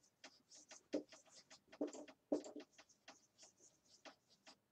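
Whiteboard marker writing on a whiteboard: a quick run of short, faint squeaky strokes, several a second.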